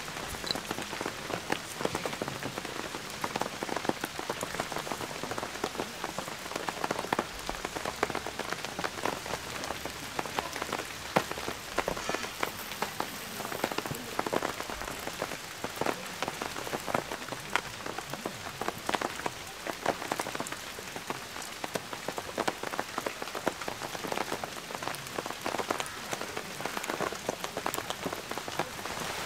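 Steady rain pattering, a dense stream of small drop ticks that keeps on without a break.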